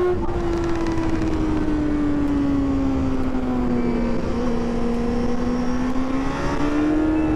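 Sport motorcycle engine running under way, its pitch sinking slowly through the first few seconds, then rising again near the end as the throttle opens, with wind rushing past the microphone.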